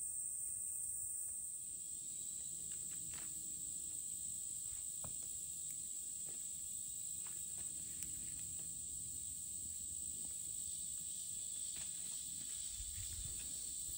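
Steady, high-pitched chorus of insects, with a few faint ticks and rustles scattered through it.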